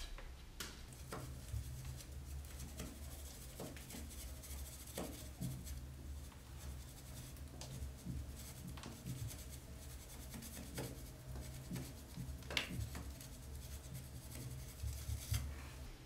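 A long straight rule scraping across freshly applied gypsum plaster on a wall, levelling it: irregular short rasping scrapes with a few sharper clicks and knocks.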